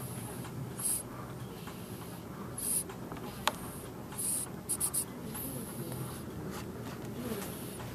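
Several short, soft scratchy rustles and a single sharp click about three and a half seconds in, over a low steady hum.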